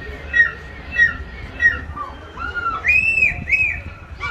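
A bird calling over and over: short, sharp calls about every half second for the first couple of seconds, then a few longer calls that rise and fall in pitch.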